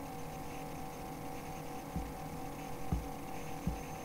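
Steady electrical hum in the background, broken by three short, soft low thumps about two, three and three and a half seconds in.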